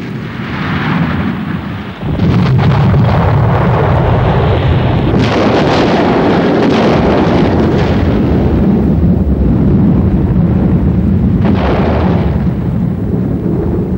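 A loud rumbling roar that starts suddenly about two seconds in and holds, swelling and easing in waves, with brief hissing surges.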